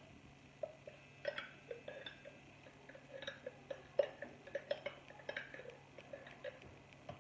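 The last of the tomato purée being shaken out of an upturned glass bottle over a steel pot: a string of irregular light clinks, taps and glugs.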